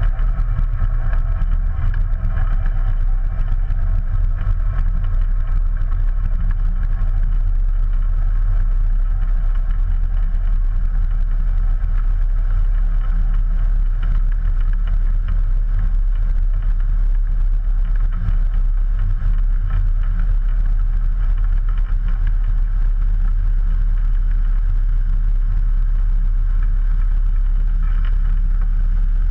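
Ikarus C42's 100 hp Rotax 912 ULS flat-four engine and propeller running steadily, heard up close as the aircraft rolls along the runway.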